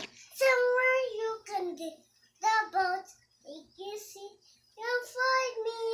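A young girl singing unaccompanied in four short phrases, some notes held.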